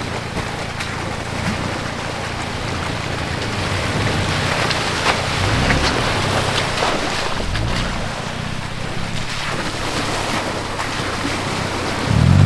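Off-road vehicle engine working up a rough trail under throttle, rising in pitch twice around the middle, with scattered clicks of tyres over rocks and wind on the microphone. A louder, steady engine note comes in near the end.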